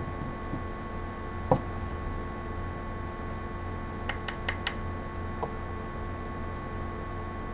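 Wooden hearth board and spindle knocking on a tile floor: one sharp knock about a second and a half in, then a quick run of four light taps a little after the middle, over a steady low hum.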